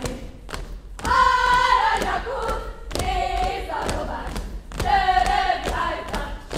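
A group of voices singing a Hungarian folk song with no instruments, in phrases with short breaks, while dancers' feet thump and stamp on the stage floor.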